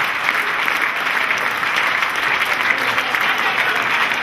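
Many hands clapping in steady, unbroken applause.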